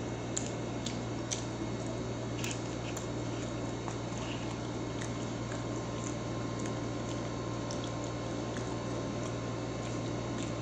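Steady hum of a noisy room air conditioner, with scattered small clicks and soft wet sounds of eating and handling food packaging, most of them in the first three seconds.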